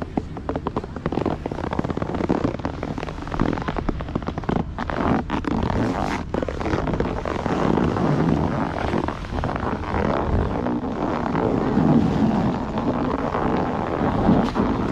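Snowboard base and edges scraping and chattering over packed snow, a crackly scrape, with wind buffeting the camera microphone that grows louder in the second half.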